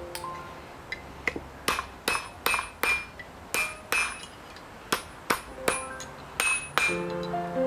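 Hand hammer striking a copper knife blank on an anvil: about a dozen blows, roughly two a second with short pauses, each with a brief metallic ring.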